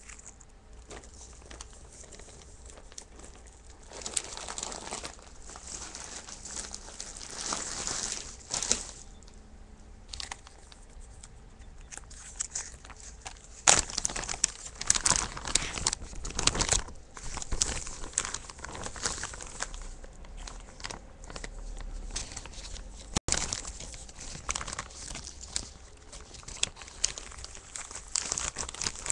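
Plastic zipper bags crinkling and rustling as they are handled, in irregular spells, loudest about halfway through.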